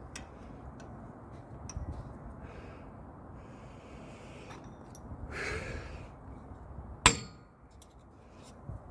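Metal tools clinking on a brake caliper, with one sharp, loud metallic strike about seven seconds in, typical of a hammer knocking at the brake pad hardware.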